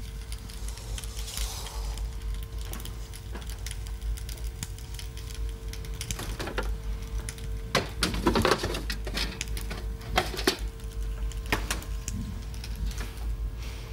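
Knocks and clicks of things being handled at an open refrigerator, with a denser cluster about eight seconds in, over a steady low hum.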